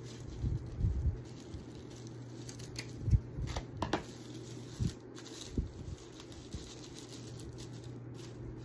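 Scissors snipping through the fibres of a dollar-store grass hula skirt, with rustling and a few soft knocks, over a steady low hum.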